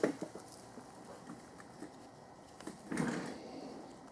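Quiet handling noises as small steel thermostat bolts are held in the palm and coated with blue threadlocker: a knock at the start, a few faint clicks, and a louder muffled rustle about three seconds in.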